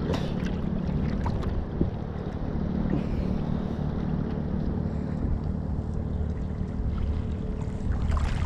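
Steady low rumble of a boat engine running, mixed with seawater sloshing around a microphone held at the water's surface.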